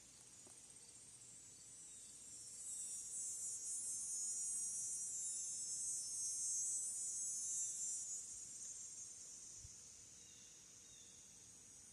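A high-pitched insect buzz swells up about two and a half seconds in, holds for about five seconds, then fades away.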